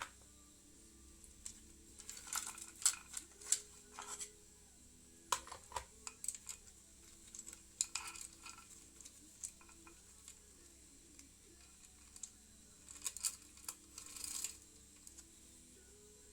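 Metal tools and small metal parts clinking and tapping in scattered clusters of sharp clicks during hands-on motorcycle engine work.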